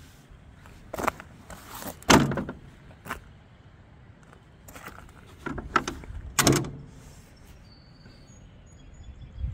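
A few sharp knocks and clunks, the loudest about two seconds in and again about six and a half seconds in.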